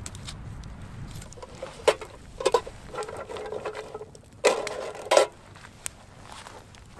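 Metal cooking pot clanking against a wire grill as it is set over a wood campfire, several knocks with a short metallic ring about two seconds in and again about four and a half to five seconds in, over the light crackle of the fire.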